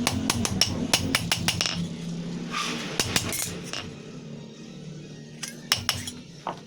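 Quick, light hammer taps and clinks on a steel knife blank while the hole for the handle is worked: about five taps a second for the first two seconds, then scattered strikes, over a low steady hum.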